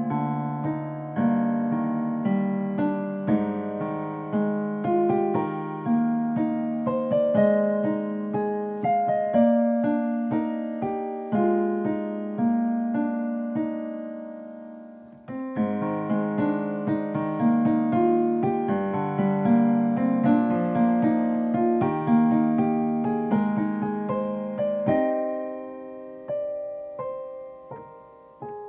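Digital piano played by hand: a flowing run of broken-chord notes that dies away about fifteen seconds in, starts up again at full strength, and grows softer and sparser near the end.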